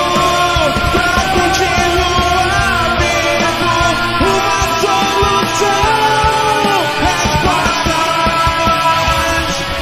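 Punk rock band music: electric guitars and drums with singing.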